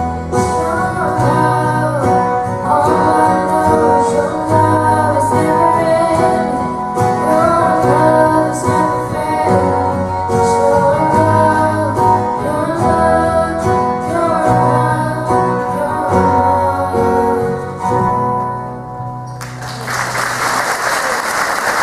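A small band with strummed acoustic guitars and voices singing plays the end of a song. The music stops about 19 seconds in and applause follows.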